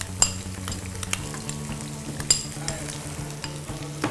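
Diced carrots and green beans sizzling in a little hot soybean oil in a frying pan on a gas burner as the carrots are added. Two sharp clinks come through, one just after the start and one a little past two seconds in.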